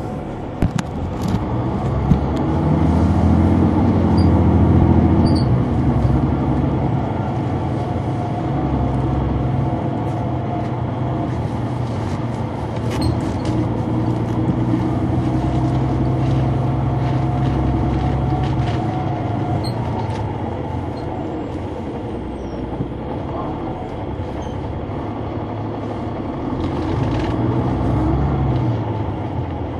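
Interior of a 2004 Neoplan AN459 articulated transit bus under way, its Caterpillar C9 ACERT diesel driving through a ZF Ecomat automatic gearbox. The engine note rises a few seconds in, holds fairly steady, and changes pitch again near the end, with occasional short rattles and clicks from the bus.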